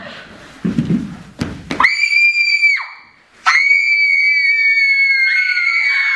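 Girls screaming in long, high-pitched held shrieks: a short scream about two seconds in, then a long one from about three and a half seconds in, with a second voice joining near the end. A low rumble and two sharp knocks come about a second in.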